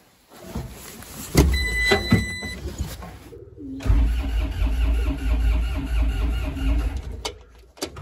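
Diesel skid steer engine cranking over for about three seconds in deep cold without catching, with an even pulsing as it turns; it doesn't sound very promising. A short beep sounds before the cranking.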